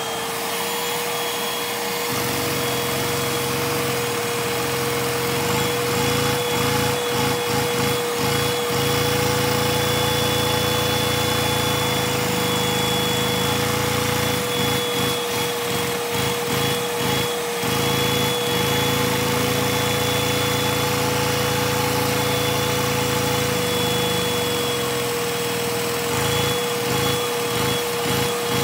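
Vacuum cleaner running with a steady whine, drawing air through a LEGO inline-two overhead-valve vacuum engine that runs without a flywheel. The engine's plastic parts keep up an irregular clicking and clattering, running clunky but steady.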